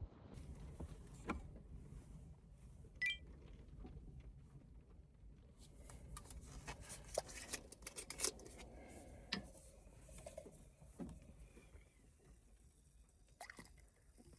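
Light scattered clicks and taps of tableware being handled in a small space, with one short ringing clink about three seconds in.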